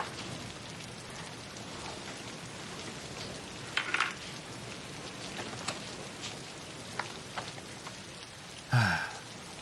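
Steady rain falling, a continuous hiss with scattered small drip clicks.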